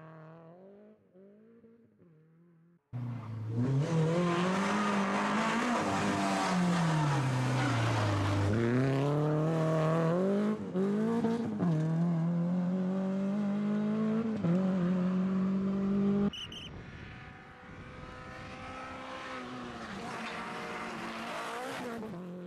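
Renault Clio rally car's engine revving hard, its pitch climbing and dropping again and again as the driver accelerates, shifts and lifts. The first few seconds are faint and distant, then the sound cuts in loud and close, with another abrupt change near two-thirds of the way through.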